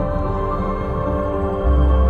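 Ambient electronic music with sustained synth tones, played over the car's JBL premium sound system and heard inside the cabin; a deep bass note comes in near the end.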